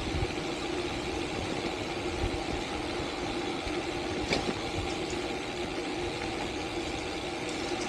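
Steady road noise of a gravel bike rolling along an asphalt road at an even speed, with wind on the microphone.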